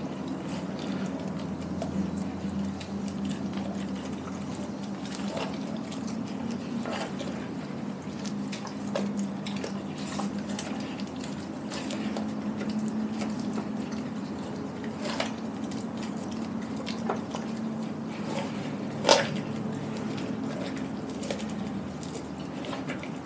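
Doberman chewing and licking a whole raw chicken: wet squelching and smacking with scattered sharp clicks, the loudest about 19 seconds in, over a steady low hum.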